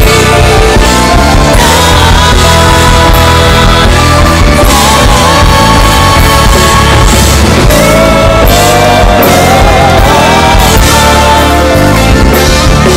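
Live gospel band playing: keyboards, electric guitar, bass and drums, with a strong steady bass under the beat. A sustained lead line wavers and slides upward about eight seconds in.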